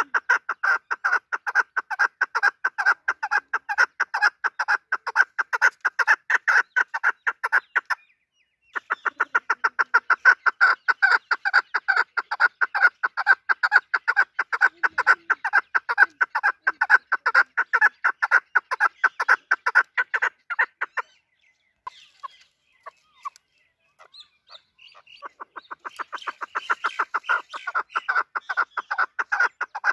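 Chukar partridge calling: long runs of rapid, evenly repeated chuk notes, several a second. The calling breaks off briefly about eight seconds in. After about twenty seconds it thins to a few scattered notes, then builds again near the end.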